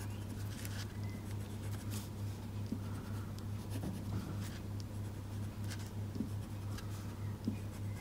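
Coloured pencil scratching lightly on cardstock in short shading strokes, over a steady low hum.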